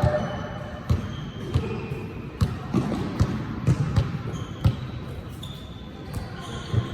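Basketball bouncing on a hard court during one-on-one play: a string of irregularly spaced bounces, thinning out toward the end.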